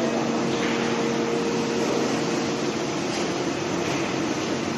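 Potato chip frying line machinery running: a steady mechanical hum with a constant low drone under an even hiss.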